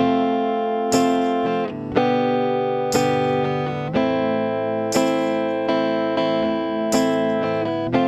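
A guitar playing chords. A strong strum lands about once a second with lighter strokes in between, and there is no singing.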